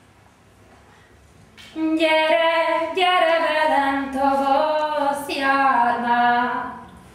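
A woman singing solo without accompaniment, starting about two seconds in: a slow phrase of long held notes that bend between pitches.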